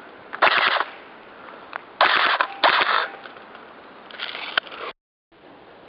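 Airsoft guns firing in short, loud bursts, about four in all. The sound drops out for a moment near the end.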